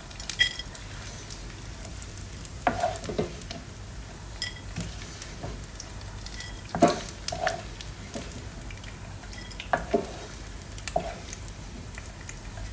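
Hot oil sizzling steadily in a frying pan as fried dried anchovies are lifted out with a wooden spoon. The spoon knocks and scrapes against the pan and bowl about a dozen times, some knocks with a short ringing note.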